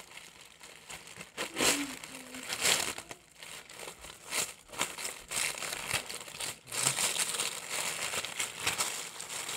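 Clear plastic shrink wrap film crinkling and rustling in irregular bursts as it is gathered up and twisted closed by hand.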